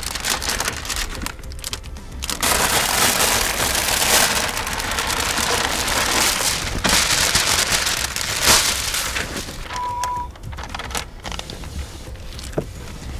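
Hiss of a spray bottle misting slip solution onto the glass and tint film, in long sprays from about two and a half to nine seconds in, with lighter handling noises around it. A short beep sounds about ten seconds in.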